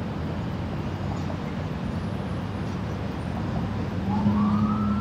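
Steady road traffic noise from vehicles crossing a bridge. About four seconds in, a siren starts up, rising in pitch and then holding.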